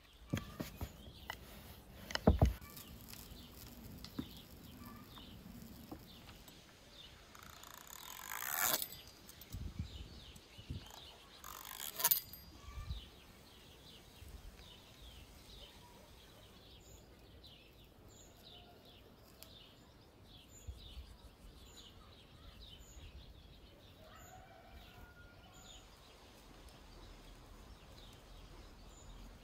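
Small birds chirping in the background, with a few handling noises: a sharp knock a couple of seconds in, a rising swish at about eight seconds, and another sharp clatter at about twelve seconds.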